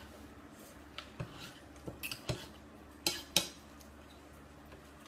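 Spoon and fork clicking and scraping against a bowl while eating, with several light clinks in the first three and a half seconds. The loudest two come about three seconds in.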